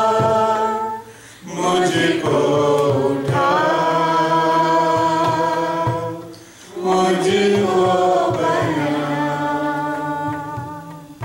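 A man singing a slow hymn unaccompanied, long held notes in phrases, with short breaks about a second in and about six and a half seconds in.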